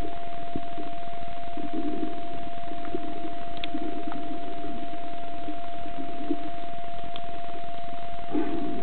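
Underwater sound picked up by a submerged waterproof camera: an uneven, muffled low rumble of moving water that swells and fades, over a steady single-tone whine, with a few faint clicks.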